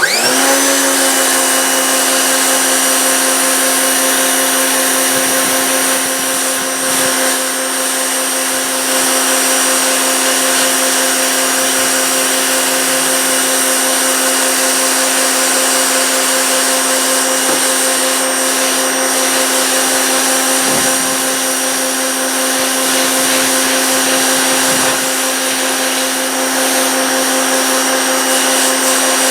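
Powerplay Spyder 2000 PSI pressure washer starting up with a short rising whine as the trigger is pulled, then running steadily: a constant motor-and-pump whine over the hiss of the high-pressure jet hitting a concrete driveway.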